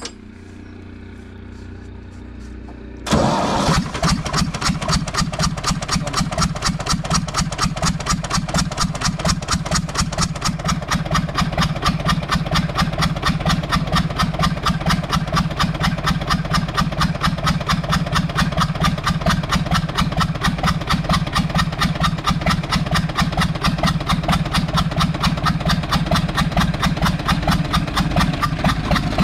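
Universal 550 tractor's diesel engine starting suddenly about three seconds in and then running at a steady idle with a fast, even knocking beat, the engine noise the mechanics are trying to trace while checking the injector.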